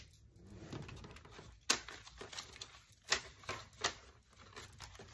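A stack of paper dollar bills being gathered up and squared between the hands: soft rustling with a few sharp paper snaps, the loudest about a third of the way in and three more in quick succession a little past halfway.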